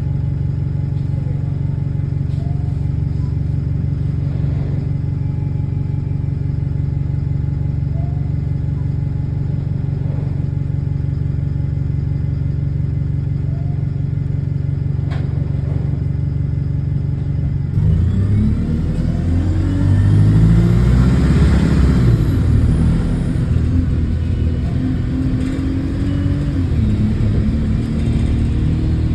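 Bus diesel engine, heard from on board, idling steadily, then about two-thirds of the way in revving up as the bus pulls away. The pitch rises and drops back a couple of times as it accelerates through the gears. The bus has an exhaust leak.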